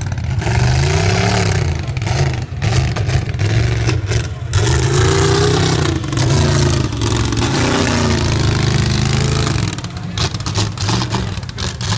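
Mud-racing pickup truck's engine revving hard in repeated surges, pitch climbing and falling as it powers through the mud pit, easing off near the end.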